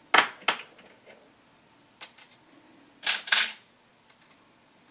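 Sharp metallic clicks and clacks of brass and steel as a cartridge is worked through a MEC Marksman single-stage reloading press while seating bullets. There are two near the start, a lighter one about two seconds in, and a longer double clack a little after three seconds.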